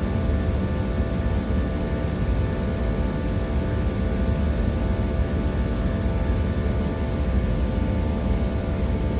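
Airplane cabin noise in flight: a steady deep rumble of engines and rushing air, with several steady whining engine tones on top.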